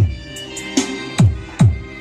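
Electronic dance remix played loud through a Philips FXD18 mini hi-fi system, with deep kick drums that drop sharply in pitch hitting several times over a sustained synth backing.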